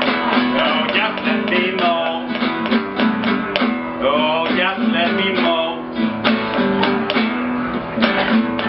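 Acoustic guitar strumming a blues in steady strokes over held bass notes. A melody line bends up and down in pitch over it, about two seconds in and again around the middle.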